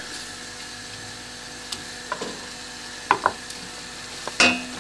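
Wooden spoon stirring diced fish into vegetables sautéing in butter in a stainless-steel pot, over a low steady sizzle. A few sharp knocks of the spoon against the pot come through; the loudest, near the end, rings briefly.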